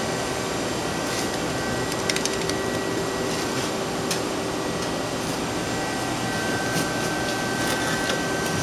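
CNC lathe standing powered with its hydraulic pump unit running, a steady hum with a few faint clicks. A second steady whine joins about six seconds in.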